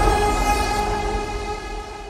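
A held musical chord from the film score, several steady notes sounding together like a horn blast, slowly fading out.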